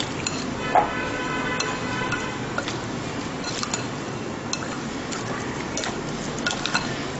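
Fish pieces being mixed by hand with a thick spice marinade in a glass bowl: irregular sharp clicks and taps against the glass amid the soft noise of the mixing.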